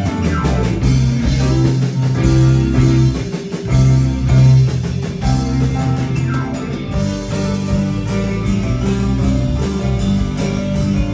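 A rock band playing live: guitar over a drum kit, with sustained notes and a couple of sliding guitar notes, one falling near the start and one rising about halfway through.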